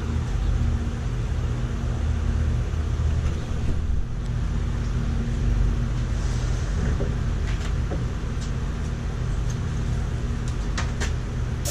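Air compressor running with a steady low hum, with a few short hisses near the end.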